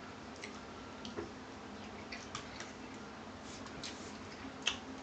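Quiet eating sounds: scattered soft clicks and taps of a fork against a dish and of chewing scrambled eggs, with one sharper click near the end.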